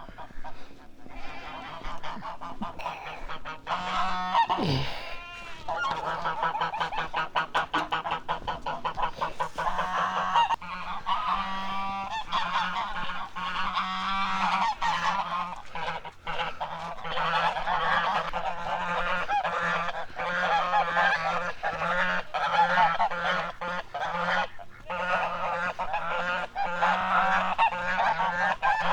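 A flock of domestic American Buff geese honking continuously, many overlapping calls, as they clamour at feeding time.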